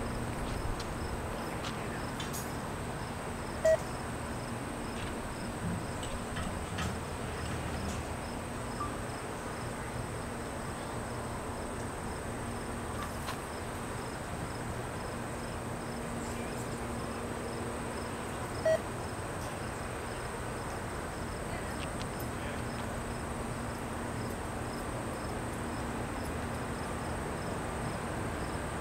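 Crickets chirring steadily in an evenly pulsed high trill, over a faint low hum from a distant approaching train. Two short sharp pips stand out, about 4 and 19 seconds in.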